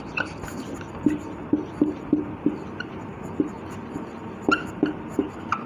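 Dry-erase marker squeaking on a whiteboard as words are written: a string of short, irregular squeaks.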